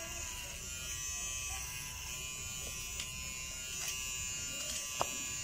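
Blueidea rechargeable pet trimmer running with a steady buzz while clipping a dog's coat, with a few faint clicks and one sharper click about five seconds in.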